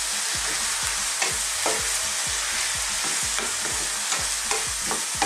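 Wooden spatula stir-frying bean sprouts and pork cracklings in a hot nonstick pan: a steady frying hiss, with a soft knock from each stroke about three times a second.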